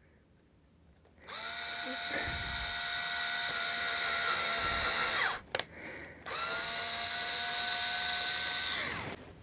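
Small cordless drill boring two pilot holes into the wooden layout fascia: two steady motor whines of about four and three seconds, each winding down as it stops, with a short click between them.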